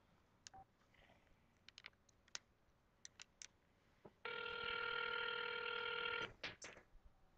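A few faint clicks of a cell phone being handled, then an outgoing call's ringback tone: one steady ring of about two seconds, heard from the phone's earpiece, about four seconds in.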